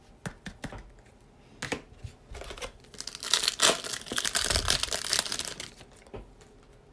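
Wrapper of a 2020-21 Prizm basketball trading-card pack being torn open and crinkled, loudest from about three to five seconds in. A few light clicks come before it.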